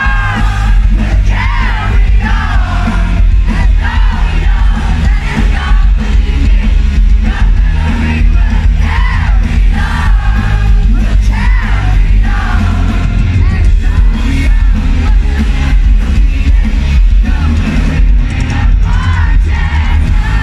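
Live rock band playing loud through a concert PA, with singing and crowd shouts over it, heard from among the audience.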